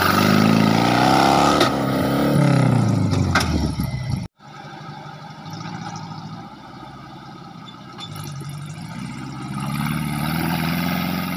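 Off-road buggy's engine revving hard under load as it climbs a steep dirt slope, its pitch rising and falling. It breaks off abruptly about four seconds in, then runs quieter and builds up again near the end.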